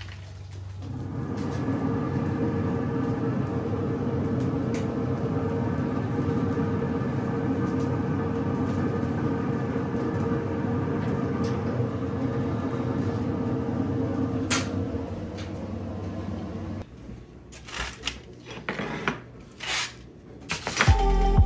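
A steady machine hum with a low drone and a few fixed tones. It cuts off suddenly about three-quarters of the way through and is followed by a few scattered knocks and clicks.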